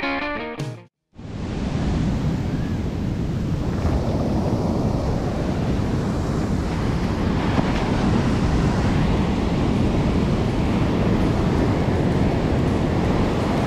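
Ocean surf breaking and washing up over the sand, a steady rush with wind on the microphone. The last notes of a short music sting end about a second in, just before the surf comes in.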